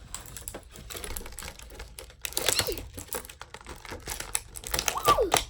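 Rapid plastic clicking and rattling of a Twisty Pets beaded twist toy being handled and twisted, with louder bursts about two seconds in and near the end, each with a short squeak.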